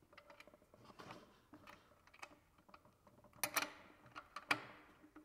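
Light metallic clicks and ticks of a wrench on the nuts and bolts fastening a cyclone separator to a metal drum lid as they are snugged down, with a couple of louder clinks about three and a half seconds in and again a second later.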